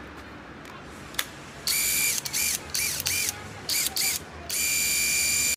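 Cordless impact wrench running unloaded, its trigger pulled in several short bursts that each rise and fall in pitch as the motor spins up and down, then held for a run of about a second that cuts off suddenly. A single click comes shortly before the first burst.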